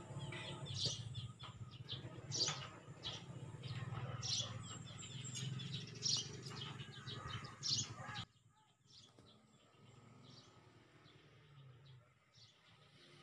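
Small birds chirping, short high calls coming every second or so over a steady low hum. About eight seconds in, the hum and most of the sound drop away abruptly, leaving fainter chirps.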